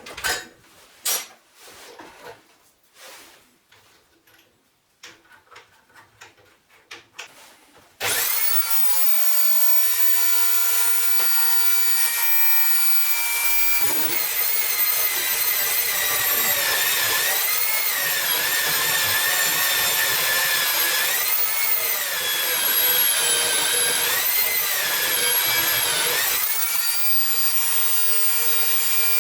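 Several light knocks and clicks, then an electric angle grinder starts about a third of the way in and runs with a loud, steady high whine, most likely cutting or grinding steel. Its pitch sags briefly several times as the disc is pressed into the work.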